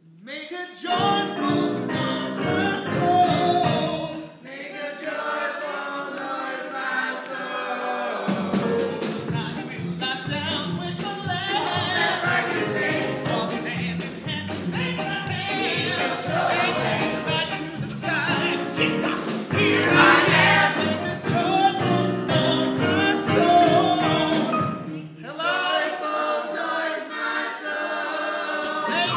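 Cast singing an upbeat, gospel-style show tune, a male lead with the ensemble, with sharp percussive clicks through the middle of the song.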